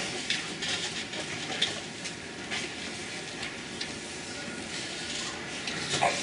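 Dry-erase marker strokes on a whiteboard: a few faint, short scratches over steady room noise with a low hum.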